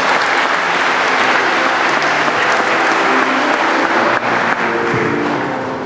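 A congregation applauding and clapping hands after a baby's baptism, over soft background music, tapering off near the end.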